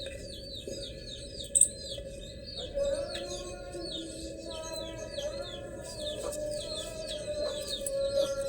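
Birds chirping: a rapid series of short high chirps, about three a second, over a steady low tone. A single sharp click about a second and a half in.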